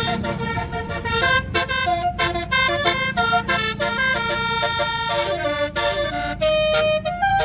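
A tour bus's Basuri telolet horn playing a fast melody of short, high pitched notes, over the low rumble of the bus's engine.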